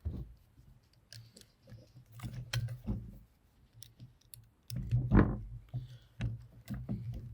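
Short cut tubes being pushed into the rotating nozzle head of an air filter cleaning tool: scattered clicks and small knocks of parts being handled and fitted, with a heavier thump about five seconds in.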